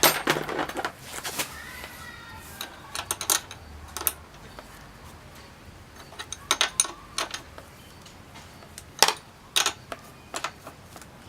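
Scattered clicks and light rattles of plastic scooter body parts and wiring being handled, some in quick clusters.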